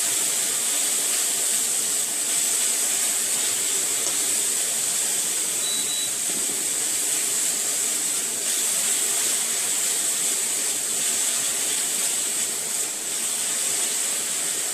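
Ginger, garlic and tomato frying in hot oil in a pan, a steady sizzling hiss.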